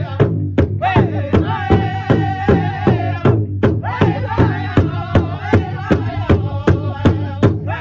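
Powwow big drum struck in a steady, fast unison beat, about four strokes a second, under a group of singers singing together in powwow style. The voices hold a long high note about two seconds in, then break off briefly before picking up again.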